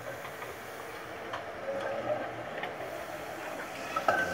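A tram running slowly along the track, its wheels clicking and knocking over the rails; near the end come a few louder clanks and a brief high squeal.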